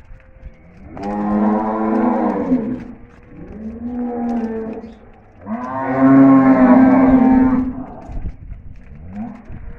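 Cattle mooing: three long calls, the second weaker and the third the loudest and longest, with a faint short call near the end.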